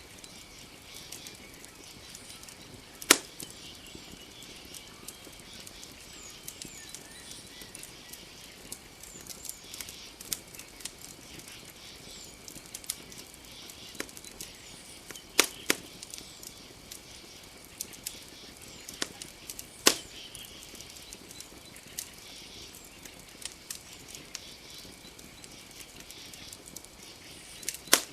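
Wood campfire crackling, with small ticks throughout and a few sharp, loud pops spaced several seconds apart. Behind it runs a steady, high-pitched night chorus.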